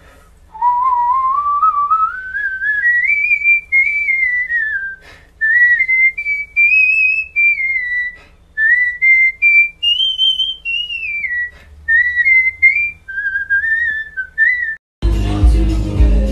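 A whistled melody presented as a stovetop kettle's whistle. A single clear tone slides steadily upward for the first few seconds, then runs through a string of short held notes and slides. Loud music cuts in near the end.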